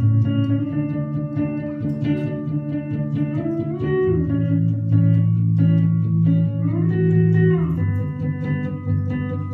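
Live band music: guitar over a bass guitar line, with notes sliding in pitch about four and again about seven seconds in.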